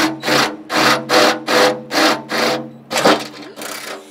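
Cordless drill boring through the steel rear fender of a 1969 Massey Ferguson 135: a steady motor whine under repeated grinding rasps of the twist bit cutting metal, two or three a second. The drilling stops shortly before the end.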